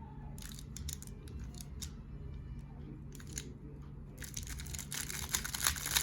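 Speedcube turned over and over in the R prime U prime TPS spam, its plastic layers clicking and clacking as they snap through each turn. Scattered clicks at first, then a dense, fast run of turns from about four seconds in.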